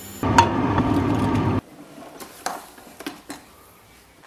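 A loud rushing noise that cuts off sharply about a second and a half in, then quiet room tone with a few light clicks and knocks as the tonearm of a portable record player is handled and set onto a record.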